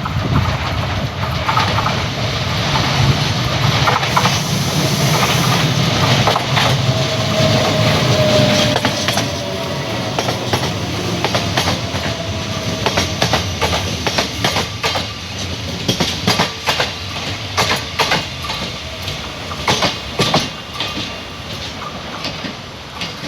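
A train passing on the rails: a steady rumble, then a run of rapid clicks as the wheels cross rail joints, easing off near the end.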